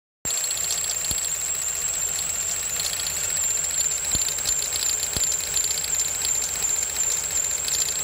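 2004 Ford Ka's four-cylinder engine idling with a single-cylinder misfire, while a test light held in a wasted-spark coil pack tower crackles and snaps as spark jumps to it, with three sharp clicks about one, four and five seconds in. A steady high whine runs through it.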